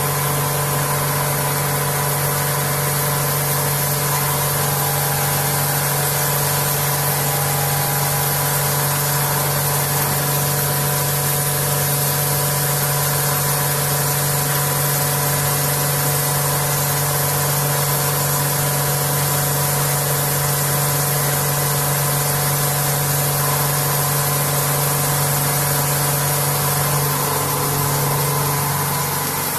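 Vertical machining centre face milling an aluminium part: a loud, steady machine hum with several steady tones and a broad hiss over it. The low hum fades out near the end.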